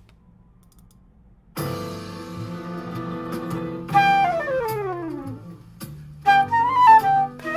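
Quiet room hum, then about a second and a half in a jazz piano-trio backing recording comes in with a full chord and bass. A silver concert flute plays along over it, with a fast descending run and then a short bending bluesy phrase.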